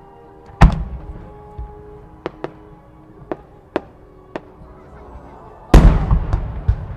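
Large 300 mm (10-gō) aerial firework shells bursting: a loud boom about half a second in, a scatter of sharper, smaller cracks, then a second loud boom near the end that rumbles on afterwards.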